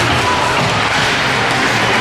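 Steady crowd noise from spectators in a sports arena, with music playing over it.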